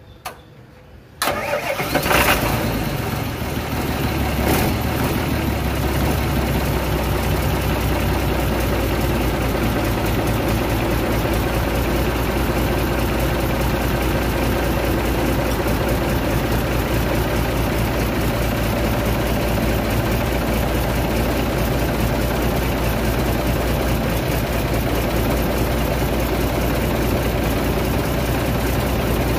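Isuzu 6BG1 inline-six diesel engine, freshly semi-overhauled, being started: a brief click, then about a second in it catches with a loud burst and settles into a steady idle.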